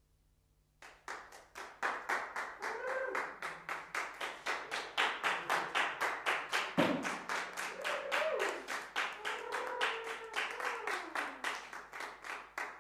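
Audience clapping and applauding, starting about a second in, with a few voices calling out over the claps.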